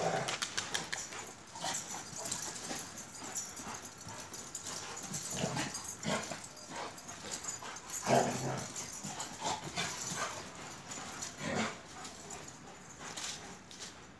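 An Akbash and a Kangal shepherd dog play-fighting, giving short whines and grumbles every few seconds over the scuffle of paws on dirt.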